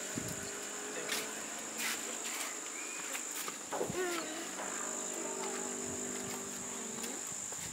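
Insects chirring steadily at a high pitch, with a few faint clicks over it.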